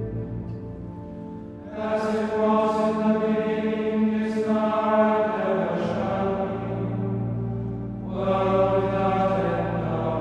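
Monks singing plainchant, several voices in unison on sustained sung words. The phrases start about two seconds in and again near eight seconds, over a low held note.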